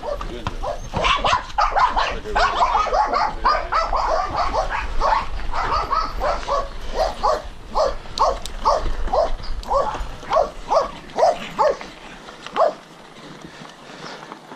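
A dog barking over and over: a dense run of barks at first, then barks at about two a second that stop near the end. A steady low rumble runs underneath.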